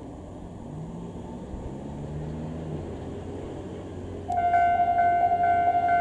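Japanese level-crossing warning bell switches on suddenly about four seconds in: a loud electronic ringing tone repeating about twice a second, the signal that a train is approaching. Before it, a low steady street rumble.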